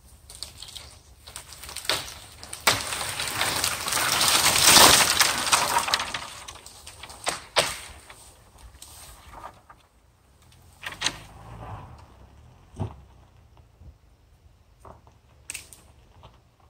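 A dead tree being pulled over: sharp cracks of wood splitting, then a long crash of dry branches snapping as it falls to the ground, loudest about five seconds in. A few scattered snaps of branches follow.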